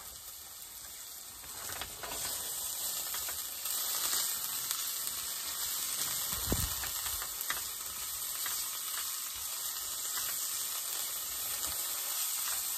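Chopped bacon sizzling in a frying pan and being stirred with a spatula, with a few light taps of the spatula against the pan. The sizzle gets louder about two seconds in.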